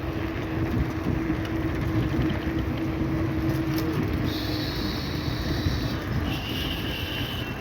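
Steady city street traffic noise with a low hum. About four seconds in, a high steady tone joins for a couple of seconds, followed by a slightly lower one near the end.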